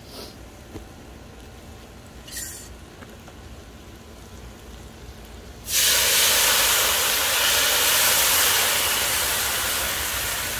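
White wine poured into a hot cast-iron Dutch oven of browned chorizo hits the hot iron about halfway through and sizzles in a loud, steady hiss that eases slightly toward the end, boiling off as the pot is deglazed.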